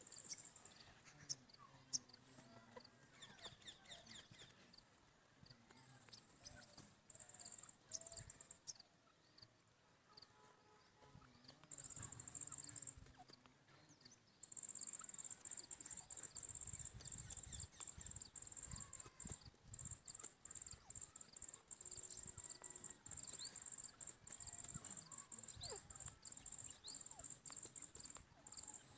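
Soft, scattered clucking calls of a female grey francolin (Irani teetar). A cricket chirps loudly and high-pitched over them, first in short bursts and then almost without a break from about halfway.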